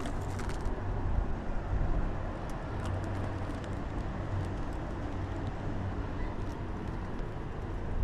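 Wind buffeting the microphone: a steady low rumble with an even hiss above it, and a few light clicks in the first second.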